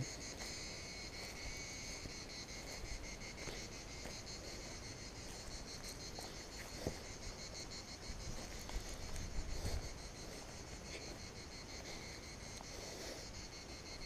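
Steady chorus of chirping insects: a fast, even pulsing trill sounding at several pitches at once, with a few faint soft thumps.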